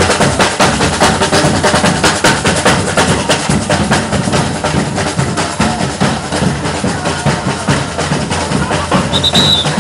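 Batucada samba percussion ensemble drumming a fast, driving rhythm, with the deep surdo bass drums under the snares and other hand percussion. A brief high-pitched tone sounds near the end.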